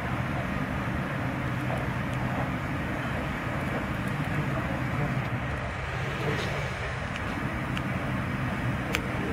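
Steady low rumble and hum of an airport terminal's background noise, with a faint click near the end.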